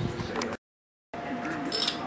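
Rustle and handling noise from a handheld camera being moved. This breaks off into about half a second of dead silence, then gives way to low room noise with a steady, faint, high whine.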